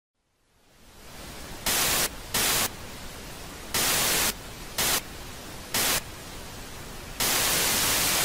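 Analogue television static: a steady hiss fades in about a second in, and louder bursts of static break in six times at uneven intervals, the last one holding on near the end.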